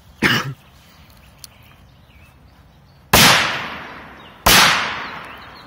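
Korsar 3 firecracker going off with two loud bangs about a second and a half apart, each trailing off in a long fading echo. A shorter, sharp crack sounds just at the start.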